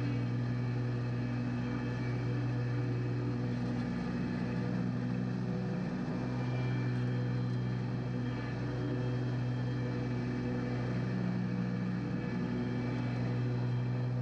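Lawn mower engine running at a steady pitch, its note dipping briefly about five seconds in.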